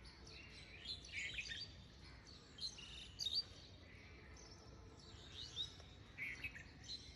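Faint birds chirping: scattered short calls, in little clusters about a second in, around three seconds, and again near six seconds.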